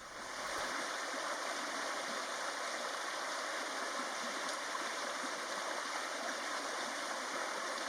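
Steady rushing of flowing water, fading in at the start.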